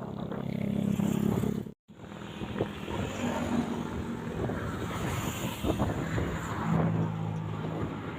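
Road traffic with a large vehicle, likely a bus, running past, its engine giving a steady low drone over rumbling tyre and road noise. The sound drops out completely for a moment just before two seconds in, then carries on.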